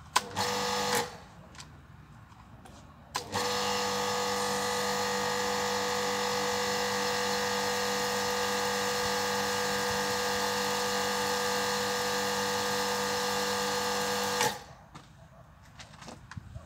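Freshly repaired Kärcher HD 5/15 C pressure washer running with a steady hum under the hiss of the spray. A brief run of under a second comes near the start, then a steady run of about eleven seconds that cuts off suddenly.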